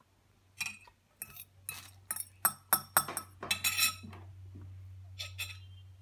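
Metal fork clinking and scraping on a ceramic plate of corn: a quick run of a dozen or so sharp clinks over about three seconds, then two more near the end.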